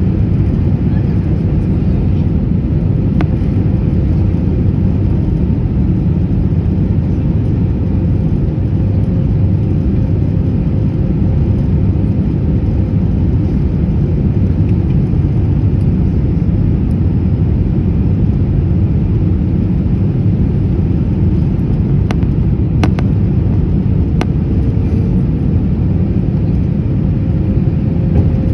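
Steady low rumble of an Airbus A321 heard from inside the cabin, with a faint steady whine and a few light clicks near the end.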